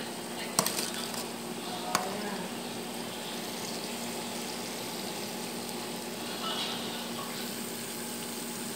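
Chicken pieces deep-frying in a pan of hot oil, a steady sizzle. Two short sharp clicks come about half a second and two seconds in.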